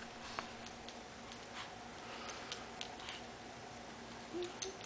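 Faint, scattered light clicks and rustles of a small Havanese dog nosing and mouthing a plush toy on carpet.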